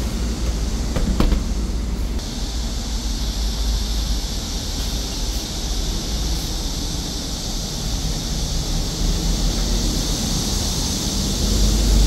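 A 2019 Hyundai Elec City electric bus with in-wheel electric motors pulls away from the stop, with a steady low rumble of drive and tyres. A couple of sharp clicks come about a second in, and a steady high hiss switches on suddenly about two seconds in.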